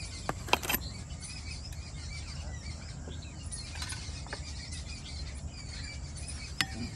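Outdoor garden ambience: birds chirping now and then over a steady low rumble and insects. A few sharp clinks of ceramic plates being handled come about half a second in and once more near the end.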